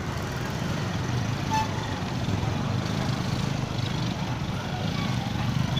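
Motor vehicle engine running with a steady low rumble, amid street traffic noise.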